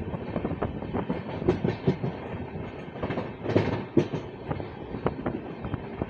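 Wheels of the moving Charminar Express passenger coaches clattering over the track: a steady rumble with irregular clicks and knocks, bunched into short clusters a few times.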